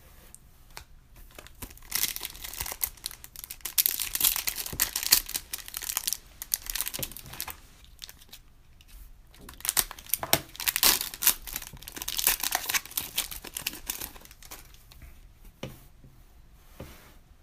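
Trading card pack wrappers being torn open and crinkled by hand, in two bouts of a few seconds each.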